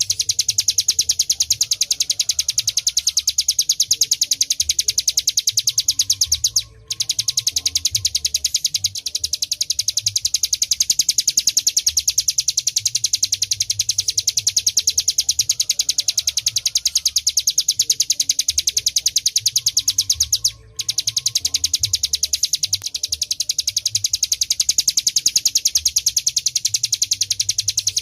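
Ciblek gunung (a mountain prinia) singing a long, fast, high-pitched trill of evenly repeated notes, which breaks off briefly twice.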